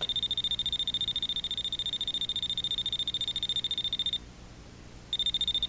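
Voltage-detector screwdriver's alarm going off: a high-pitched, rapidly pulsing electronic beep that stops about four seconds in and starts again about a second later. The alarm signals that its sensor is picking up an electric field.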